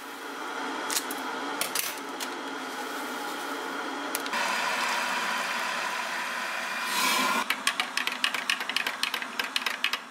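Hot water poured from an electric kettle into a small glass mug of instant coffee, a steady pour lasting about three seconds, followed by a teaspoon stirring the coffee with rapid clinks against the glass. A few light knocks come first.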